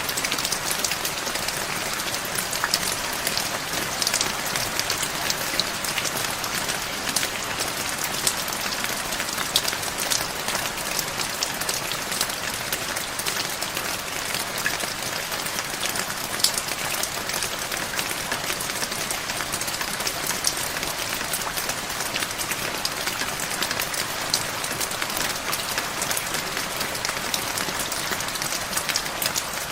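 Heavy rain falling steadily: a dense, even hiss of countless drops, with many sharper individual drop hits scattered through it.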